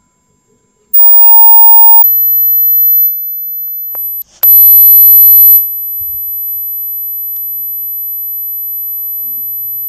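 A steady, very high-pitched electronic tone near 12 kHz from a phone's anti-rat repeller app. It follows a loud, lower-pitched beep about a second in, drops out for a moment around four seconds in, comes back louder with lower tones mixed in for about a second, then holds steady.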